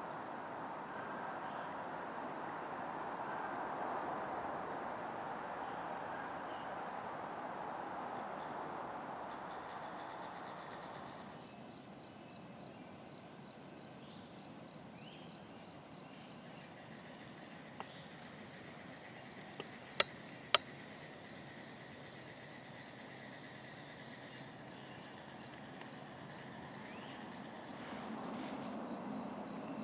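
Steady high-pitched drone of insects, with a regular pulsing chirp just beneath it. A soft rushing noise stops about eleven seconds in, and two sharp clicks come close together about twenty seconds in.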